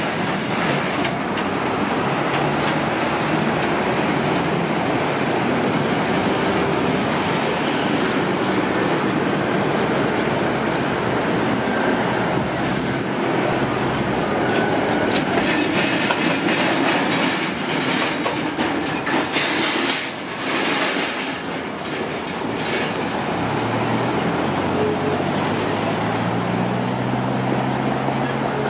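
A train running past on the rails with a steady rumble of wheels on track. Through the middle comes a run of sharp clicks from the wheels over rail joints, and a low rising hum near the end.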